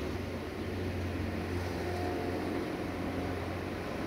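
Sulzer diesel engine of a 060-DA (ST43) diesel-electric locomotive running as it approaches at the head of a tanker freight train, heard as a steady low drone.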